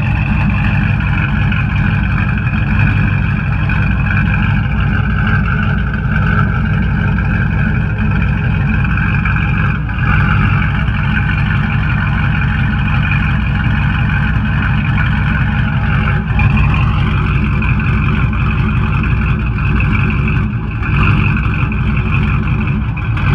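Pickup truck engine idling steadily through a side-exit Corvette-style exhaust with four tips just ahead of the rear wheel.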